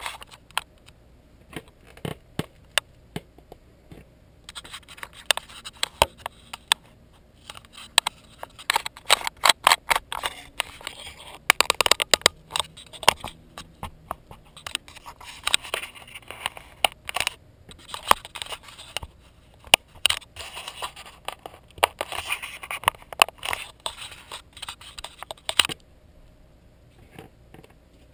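Handling noise from hands fiddling with a GoPro on a suction-cup mount atop a helmet: a long run of close clicks, scrapes and scratching right at the camera, dying away near the end.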